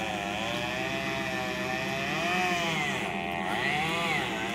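Chainsaw running, its engine revving up and down again and again, as when throttled while cutting into a tree.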